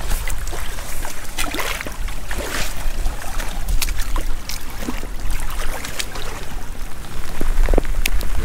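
Rain falling on a rocky shore, with many sharp, close raindrop hits over a steady wash of shallow seawater trickling through a rock pool, and a low rumble underneath.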